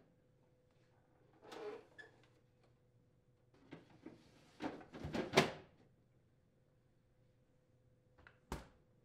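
Plastic freezer shelf and ice bucket of a GE side-by-side refrigerator being slid back into place: brief plastic scrapes and clunks, the loudest about five seconds in. Near the end the freezer door shuts with one short thud.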